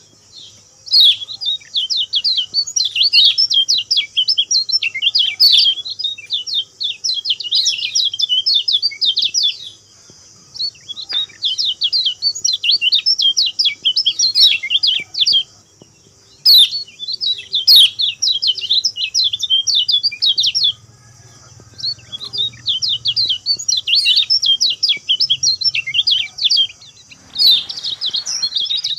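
Kecial kuning (yellow-bellied warbler) singing: phrases of fast, high, twittering chirps, each lasting a few seconds and separated by short pauses. The phrases are repeated over and over as a lure song to get other birds to sing.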